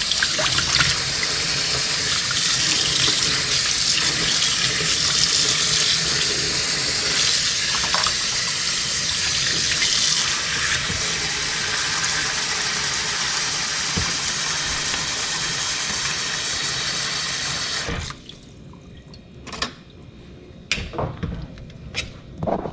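Tap water running steadily into a sink where fish are being rinsed for cleaning. It shuts off suddenly near the end, leaving a few light clicks and knocks.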